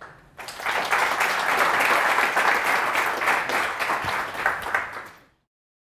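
Audience applauding: dense clapping from a roomful of people that starts about half a second in and fades out shortly before the end.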